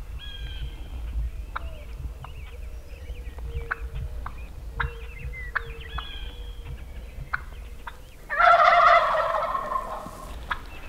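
A wild turkey gobbles once, loud and close, about eight seconds in. The call lasts about a second and a half and trails off. Before it come scattered footsteps through dry grass and faint songbird chirps.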